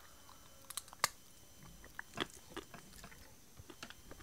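Faint, irregular mouth clicks and smacks from a small dog, with a sharper click about a second in.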